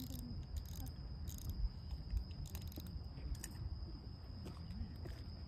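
Crickets chirping: a steady high shrill with quick chirps pulsing over it, above a low rumble, with two dull low thumps about a third of the way in.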